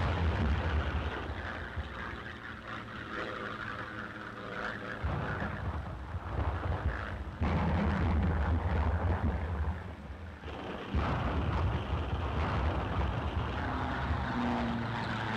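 Heavy rumbling of bombs bursting, dropped by fighter-bombers. The rumble dips about a third of the way in and swells suddenly about halfway through.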